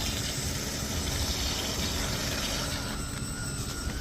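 Small electric motor of a remote-controlled toy construction vehicle whining, the whine rising slightly about three seconds in, over a steady hiss and a low rumble.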